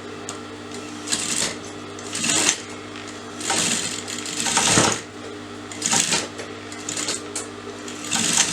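Sewing machine stitching two fabric panels together in several short runs, about six stops and starts, the longest run about a second and a half near the middle.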